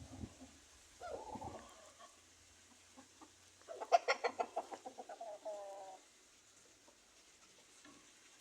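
Chicken clucking: a short call about a second in, then a rapid run of clucks at roughly ten a second, ending in a drawn-out call.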